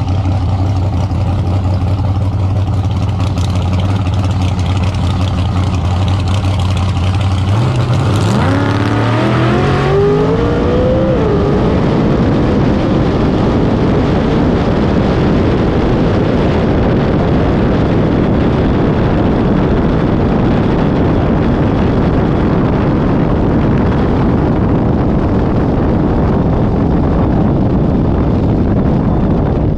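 Drag car engine idling with a steady low note, then revving up in rising steps about eight seconds in. A loud, steady rush of wind noise follows and runs on.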